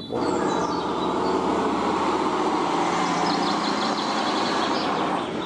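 Steady rush of running water washing mud off a toy dump truck, starting abruptly.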